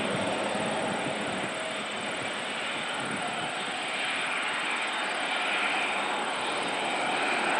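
Boeing 777-300ER's GE90 turbofan engines running at low taxi thrust as the airliner turns onto the runway: a steady jet rumble and hiss that grows louder near the end as the tail swings toward the listener.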